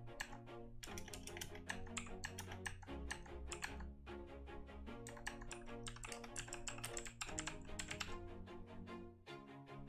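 Quick, continuous typing on a computer keyboard, a rapid run of keystroke clicks, over background music with steady sustained notes.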